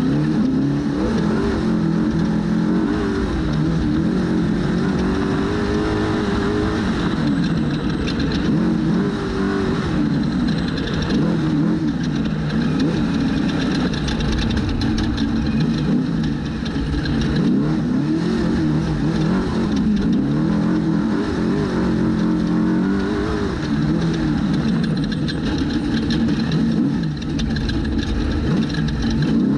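Trophy truck's V8 engine at race pace, heard from on board, its pitch rising and falling over and over as it is revved and backed off. Under it runs a steady rush of noise, with a few brief knocks.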